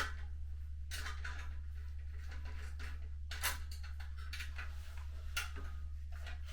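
Scattered light metal clinks and taps of BBQ smoker parts and bolts being handled during assembly, over a steady low hum.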